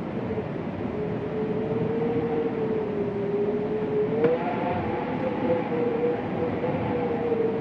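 Winter wind moaning: a wavering, moan-like tone over a steady rush of wind, sagging a little in pitch and then rising about four seconds in, where it turns fuller with higher overtones.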